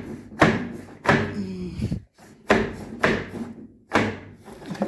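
A series of sharp knocks or thuds, about six in under five seconds, each fading out quickly.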